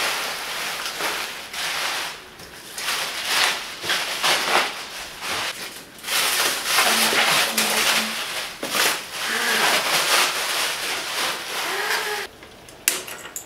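Clear plastic packing wrap crinkling and rustling as it is pulled off by hand in irregular handfuls, dropping much quieter near the end.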